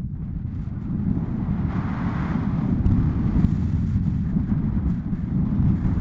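Airflow of paragliding flight buffeting the camera's microphone: a loud, gusting low rumble, with a stronger rush of hiss about two seconds in.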